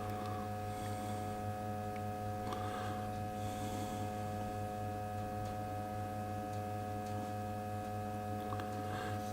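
Steady electrical hum made of several held tones, low and mid-pitched, unchanging throughout, with a few faint soft handling noises.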